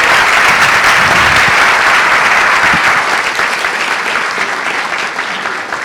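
Audience applauding, a dense steady clapping that begins to taper off gradually in the last couple of seconds.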